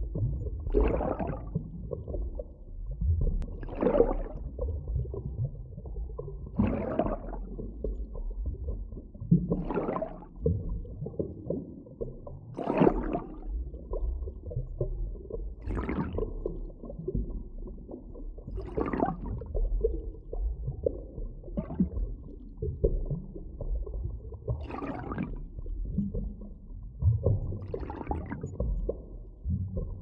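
Underwater ambience: a low, continuous rumble of moving water with a swelling whoosh about every three seconds. No dolphin whistles or clicks stand out.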